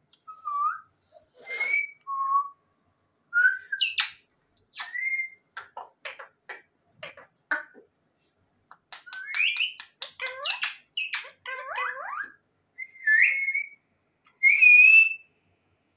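A bird calling in a string of short whistled notes, rising and falling glides, quick clicks and raspy chirps, with brief pauses between them.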